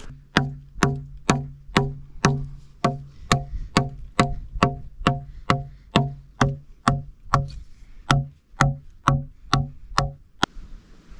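Hatchet chopping into a dry log, about two strikes a second, each blow giving a short hollow woody ring. The chopping stops about ten and a half seconds in.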